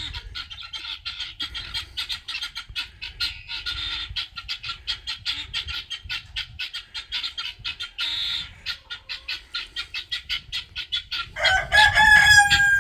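Guinea fowl giving its rapid, steady alarm chatter, set off by seeing a cat. Near the end a rooster crows once, loudly.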